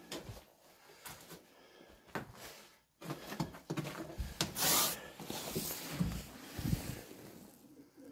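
Footsteps crunching and scraping over rubble and broken tiles on a debris-strewn floor, with a louder scraping rush about halfway through.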